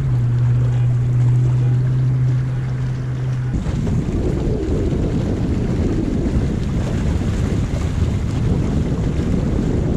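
Wind buffeting the microphone and water washing along the hull of a small wooden sailboat under sail. For the first three and a half seconds a steady low hum sits over it, then the sound changes abruptly to a denser, gustier rush of wind and water.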